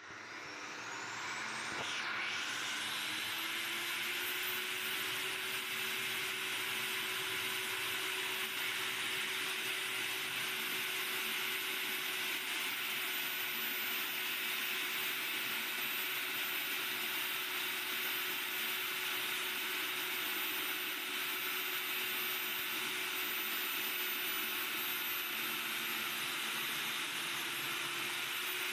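Electric diamond core drill on a wall-mounted stand, spinning up over the first couple of seconds and then running steadily with a constant whine as its water-fed core bit cuts into the wall.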